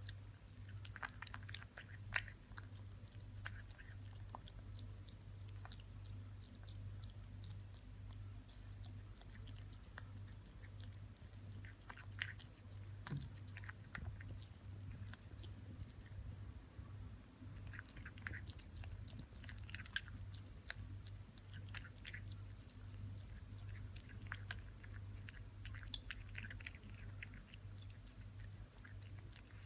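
A cat chewing and licking raw minced meat close to the microphone: soft wet smacking with occasional sharper clicks. A steady low hum runs underneath.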